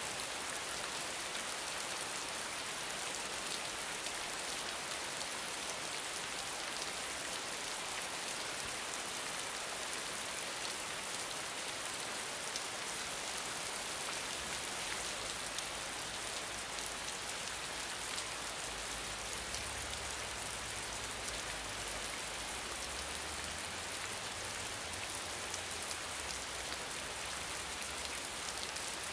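Steady rain falling on wet paving: an even hiss dotted with many small drop splashes.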